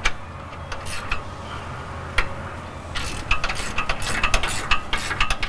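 Hand ratchet clicking as it tightens the U-bolt nuts on a pickup's rear axle, working back and forth between them. A few scattered clicks come first, then a quick run of clicks from about three seconds in.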